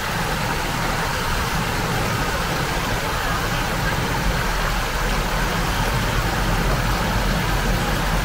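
Water rushing steadily over a small river weir.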